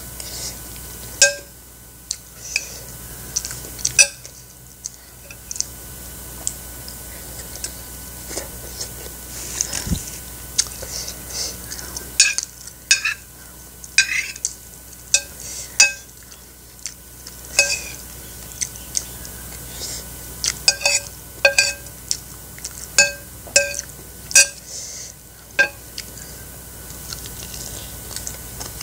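Metal spoon clinking and scraping against a ceramic plate while eating, many short sharp clinks with a brief ring, fewer at first and coming thick and fast in the second half.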